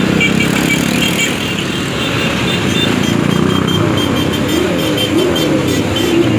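Motorcycle engines running steadily, a dense low rumble with a wavering pitch.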